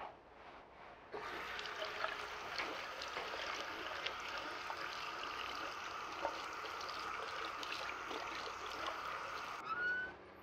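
Sink faucet turned on about a second in, tap water running steadily into the basin, then stopping abruptly near the end.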